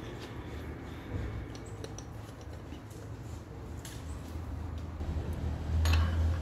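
Handling noise from a knife blank with its handle scales held in a steel C-clamp: light clicks and taps, then one sharp knock near the end, over a low steady hum.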